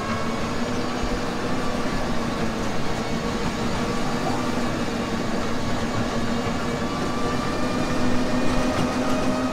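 Small amusement-park train running along its track, heard from an open passenger carriage: a steady rumble of wheels and a droning locomotive hum whose pitch creeps slowly upward as it goes.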